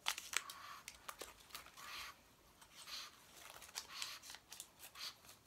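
Plastic treat wrapper crinkling and tearing as it is worked open, in short rustles about once a second with a few small clicks.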